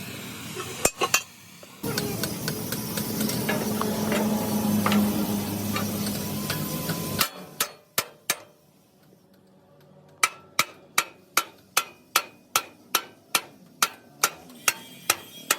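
A hammer striking metal: two blows, then about five seconds of steady noise with a low hum, then a few scattered blows. After that comes an even run of blows, about three a second, each with a brief ring.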